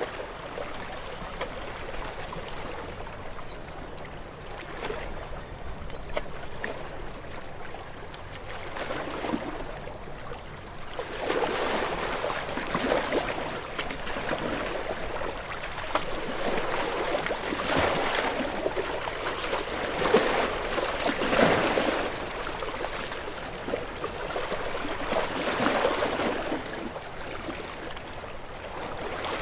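Ocean waves breaking and washing over rocks, coming in surges that swell and ebb. The surf is softer for the first ten seconds or so, then stronger with repeated surges, the loudest about two-thirds of the way through.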